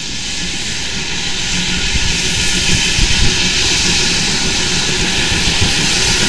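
Heavy vehicle or engine noise: a steady rushing sound over a low rumble, growing gradually louder after fading in.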